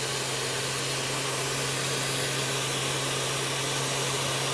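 Handheld heat blower running steadily with an even blowing hiss and a low motor hum, warming the vinyl phone skin so it softens and shapes around the corners.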